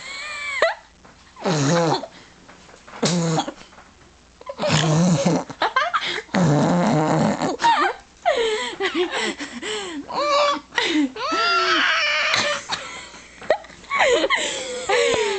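Girls making strange vocal noises: short, low, rough grunting sounds in the first half, then a string of high, wavering squeals and cries with sweeping pitch.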